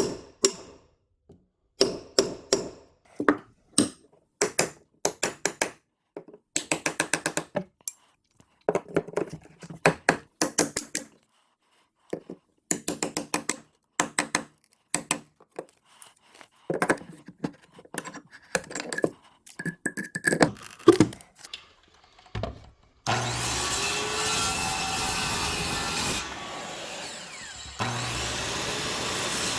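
Timber being worked by hand: bursts of quick, sharp strokes on wood with short pauses between them. About 23 seconds in, a power tool starts running steadily and keeps going to the end, with a brief drop in level near the end.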